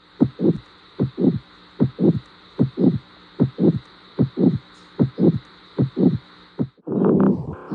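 Human heartbeat heard through a stethoscope: steady lub-dub pairs, the first and second heart sounds, about 75 beats a minute over a faint hiss. Near the end it cuts to a louder, denser throbbing heart sound.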